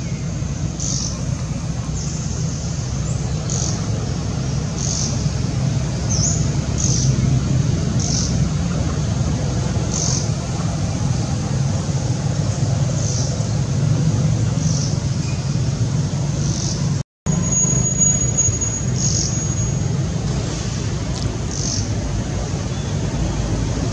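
Steady low outdoor background rumble with short high chirps roughly once a second. The sound cuts out for a moment about seventeen seconds in.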